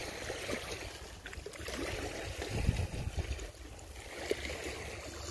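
Small waves lapping and trickling at a muddy shoreline, over a low rumble of wind on the microphone. A few faint clicks and a soft thump near the middle.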